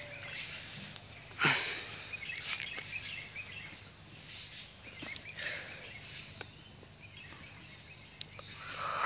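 Outdoor ambience: a steady, high-pitched insect drone runs throughout, with a few faint clicks and one brief louder sound about a second and a half in.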